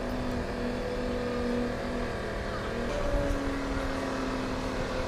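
Radio-controlled aerobatic model airplane flying overhead, its motor and propeller droning steadily, the pitch stepping up a little about three seconds in as the throttle changes.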